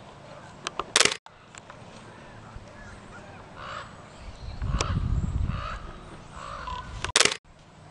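Birds giving repeated crow-like caws, with a low rumble near the middle. Two brief, loud bursts of noise come about a second in and near the end.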